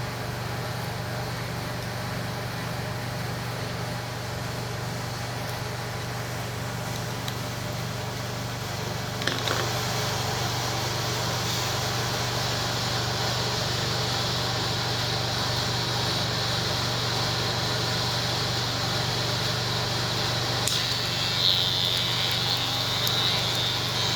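Electric hair clipper running with a steady low hum. About nine seconds in there is a click, and a higher buzzing hiss joins it and stays. The clipper runs calm and smooth with its freshly sharpened blade.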